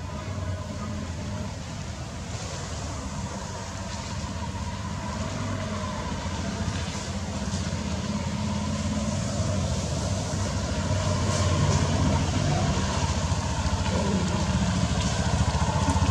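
A motor engine running steadily, a low hum that grows gradually louder towards the end.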